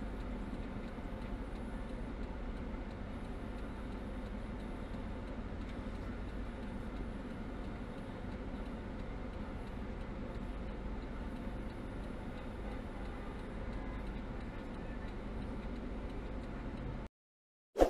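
Steady low rumble of a car idling at a traffic light, heard through its dashcam, with road noise from the surrounding traffic. It cuts off about seventeen seconds in and is followed by a single sharp ding.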